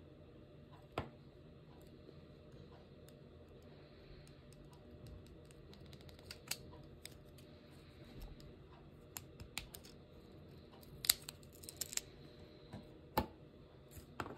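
Scattered light clicks, single and in quick clusters, the loudest about a second in and between eleven and thirteen seconds, over a steady low hum.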